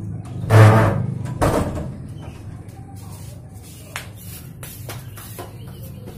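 A wooden panelled door being shut: a heavy thud about half a second in, then a second knock about a second later, over a low steady hum.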